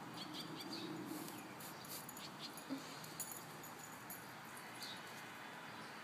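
Two six-month-old mixed-breed puppies digging and scuffling in dirt, with scattered scratching and clicking noises and one short, low dog vocalisation about a second long near the start.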